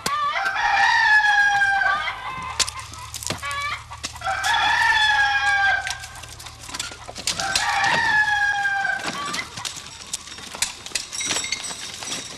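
Rooster crowing three times, each crow a long call of a second and a half or more that sinks slightly in pitch, with sharp clicks between the crows.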